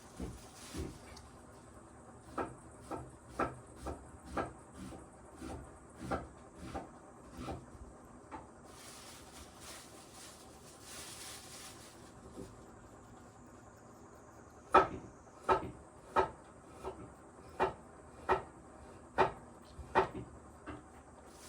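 A series of sharp, hard knocks, about one to two a second, louder in the second half, with a brief hiss about nine to eleven seconds in.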